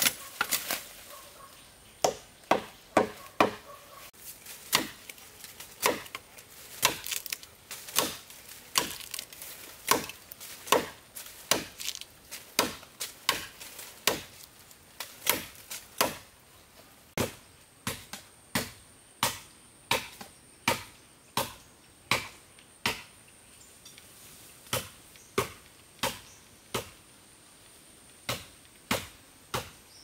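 A blade chopping wood in a long run of sharp, evenly spaced strokes, about one and a half a second, with a few brief pauses. The strokes grow somewhat softer about halfway through.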